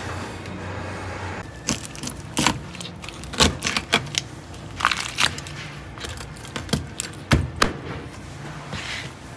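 Kitchen clatter: about a dozen irregular sharp knocks and clinks of utensils and dishes over a steady hum, with most of them in the middle few seconds.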